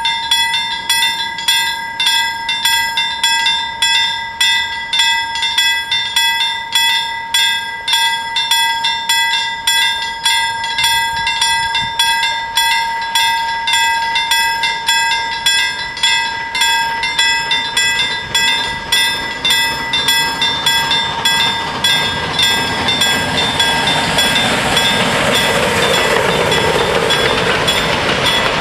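Level-crossing bells ringing with steady, even strokes, about two a second. About 22 seconds in, a steam train's noise rises as it reaches and rolls past the crossing, drowning out the bell strokes near the end.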